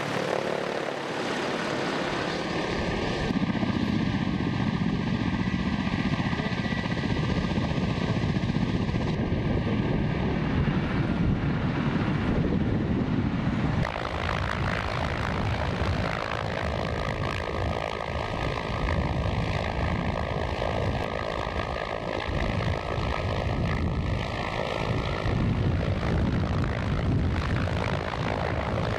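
Ka-52 coaxial-rotor attack helicopters flying low overhead: steady rotor and turbine noise. The sound changes abruptly about 14 seconds in, as one pass cuts to another.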